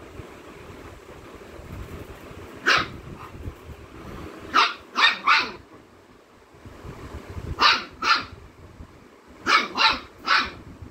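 A dog barking in short, sharp barks, about nine in all: one, then a quick run of three, then two, then three more near the end.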